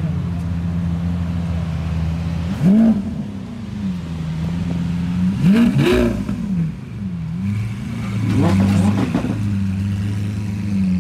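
Lamborghini Aventador SV's naturally aspirated V12 idling, blipped hard about three seconds apart. Each rev sweeps up in pitch and falls back to a steady idle.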